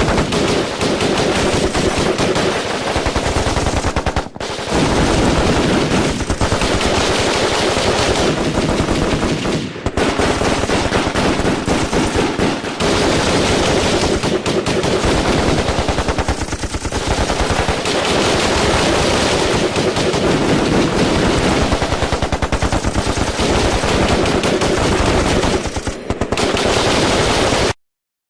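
Firefight gunfire: automatic weapons firing in long, dense, overlapping bursts almost without pause. There are brief lulls about four, ten and seventeen seconds in, and the firing cuts off abruptly just before the end.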